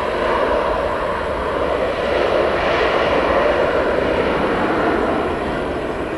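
Jet engines of a Boeing 737 airliner during its landing rollout on the runway: a loud, steady rushing noise that swells slightly midway through.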